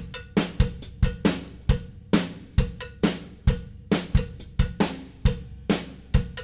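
Drum kit playing a steady beat of kick and snare hits with hi-hat and cymbal, a music bed under title graphics.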